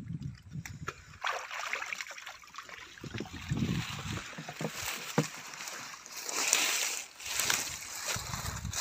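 Water sloshing and splashing, with a few sharper splashes, starting about a second in, as someone works through shallow water by hand.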